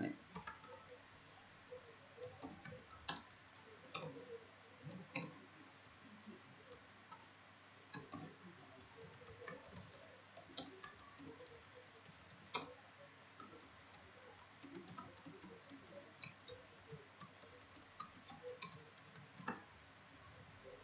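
Faint, irregular clicking of computer keyboard keys as a reply is typed, with a few louder clicks here and there.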